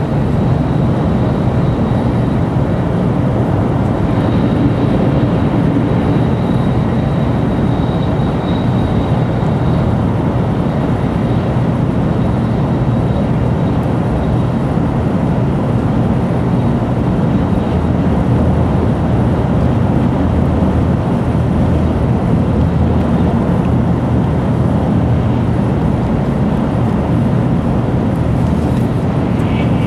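Steady running noise of a Tokaido Shinkansen bullet train at speed, heard from inside the passenger car.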